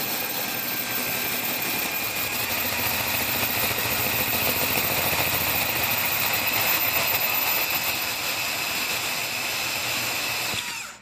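Power drill running steadily with a 1/4-inch carbide-tipped glass and tile bit grinding through porcelain tile to finish a hole: a steady high whine over a gritty hiss. It cuts off shortly before the end as the bit breaks through.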